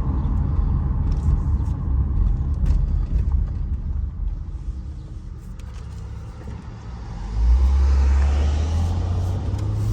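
2009 Saturn Vue on the move, heard from inside the cabin: steady low engine and road rumble that eases off in the middle, then a louder low drone comes in suddenly about seven seconds in.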